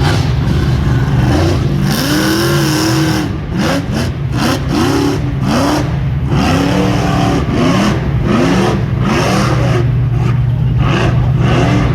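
Rock bouncer race buggy engines: one runs steadily close by while another revs in repeated short blips, its pitch rising and falling every half second or so. Scattered sharp knocks run through it.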